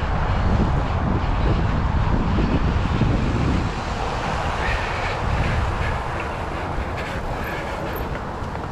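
Wind buffeting the microphone during a bike ride: a steady low rumble that eases a little after about three and a half seconds.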